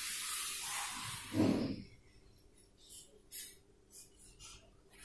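Marker pen writing on a whiteboard: a steady hissing rub of strokes, a breath about a second and a half in, then about six short separate scratchy strokes.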